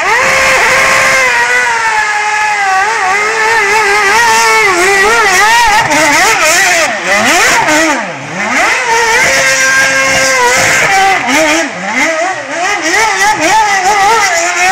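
Formula One car's V8 engine revving hard, its pitch swinging rapidly up and down with one deep drop in revs about eight seconds in, as in a burnout or donut demonstration run. The sound starts abruptly at full volume.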